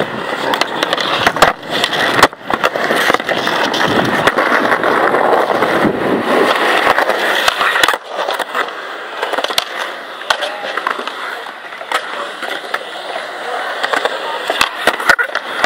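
Skateboard wheels rolling over concrete, with sharp clacks of the board striking the ground. The rolling is loud and steady, then drops away suddenly about eight seconds in to a quieter roll with scattered clicks.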